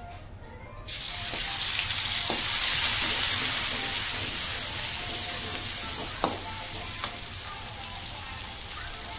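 Chili and shallot spice paste hitting hot oil in an aluminium wok: a loud sizzle starts suddenly about a second in and slowly dies down as it is stirred. A metal spatula knocks and scrapes against the wok a few times, once sharply past the middle.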